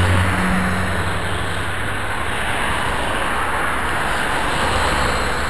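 Road traffic and steady rushing noise from riding along a busy road, with a vehicle engine hum that is strongest in the first second and then fades.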